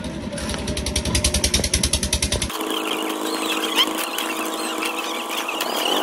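Concrete mixer's engine running with a fast, rhythmic pulsing. About two and a half seconds in, the sound changes abruptly to a steadier pitched hum with high chirps above it.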